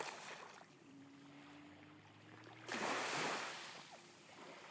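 Small sea waves washing onto the shore: a light wash at the start, then a louder wave breaks suddenly about two-thirds of the way through and drains away. A faint steady low hum runs underneath until the wave breaks.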